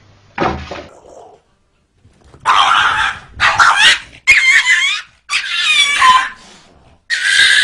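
A dog barking and yelping in a string of loud bursts, some with wavering high-pitched cries.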